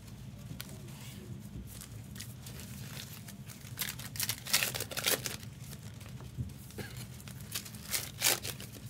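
Foil trading-card pack wrappers crinkling and tearing as they are handled, in a few short rustling clusters about halfway through and near the end, over a low steady hum.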